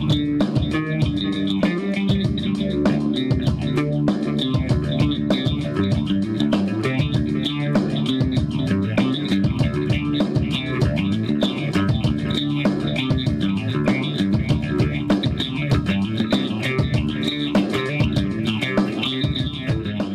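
Background music: guitar and bass guitar over a steady beat.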